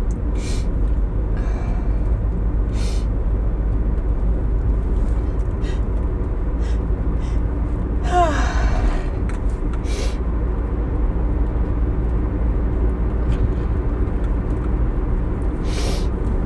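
A person's short sniffs and breaths through a tickling nose, with one louder voiced gasp that falls in pitch about eight seconds in. A steady low rumble runs underneath.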